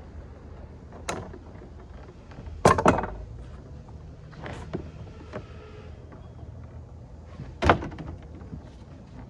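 Sheet of code 4 lead being handled on a wooden bench: scattered knocks and rattles, the loudest a quick cluster about three seconds in and another single one near the end.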